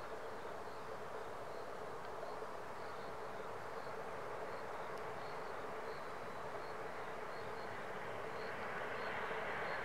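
Distant E5 and E6 shinkansen set running along an elevated line: a steady hum and hiss that grows louder near the end, when a higher steady tone comes in. Faint short high chirps repeat throughout.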